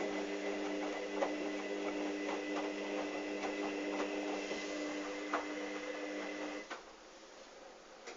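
Hoover Dynamic front-loading washing machine tumbling towels in its pre-wash: a steady motor whine over water swishing in the drum, with scattered knocks. The motor cuts off suddenly near the end as the drum pauses, leaving faint sloshing.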